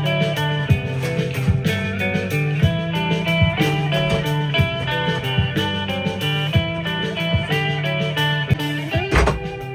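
Background music: a blues-style guitar track with bass and a steady drum beat.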